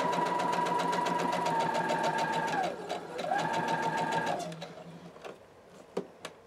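Electric sewing machine stitching through layers of fabric and batting, its motor whining over a fast, even needle clatter. It runs in bursts while the fabric is steered around a curved seam: it winds down and stops about halfway through, runs again for about a second, then stops. A few faint clicks follow.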